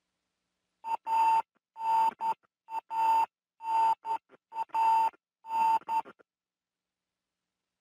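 Electronic beeping: six buzzy beeps on one steady pitch, about one a second, some broken by short dropouts.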